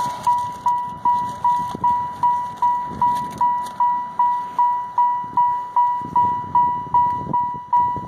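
A car's electronic warning chime: one ringing tone struck over and over, about two and a half times a second, each strike fading quickly before the next.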